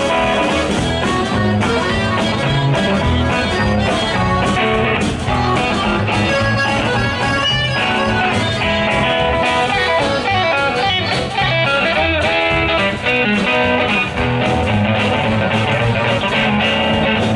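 Western swing band playing an instrumental break between verses: electric guitar and accordion over a steady bass and rhythm pulse, with no singing.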